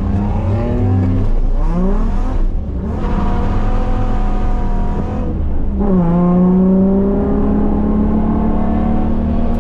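Holden VY Commodore's Ecotec V6 revving hard while driven. The revs climb, drop sharply about three seconds in and again near six seconds, and are otherwise held high and steady.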